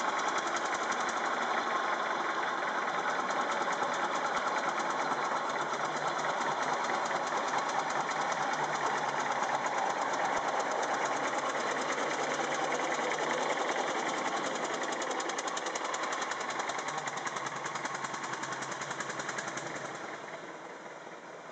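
Engine of an antique open-bodied Buick running with a fast, even beat as the car drives along, fading near the end as it pulls away.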